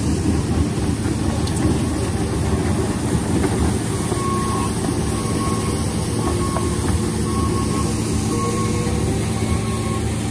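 Diesel engines of an asphalt paver and a skid-steer loader running steadily, with rakes scraping through fresh asphalt. From about four seconds in, a reversing alarm beeps over and over.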